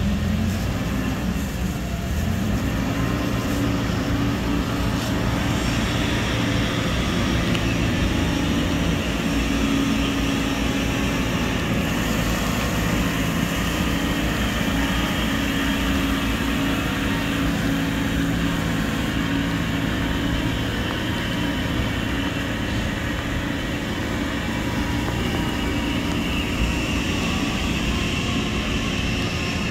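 Fiori D90 SW water truck's diesel engine running steadily as the truck drives, with the hiss of water spraying from its spray bar and cannon.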